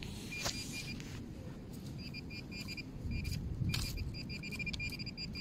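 Handheld metal-detecting pinpointer probing through wood-chip mulch and beeping in short high pulses, one brief beep just after the start, then from about two seconds in a fast run of about five beeps a second as its tip closes on buried metal. Under it is a low rumbling noise and a few scrapes of the tip among the chips.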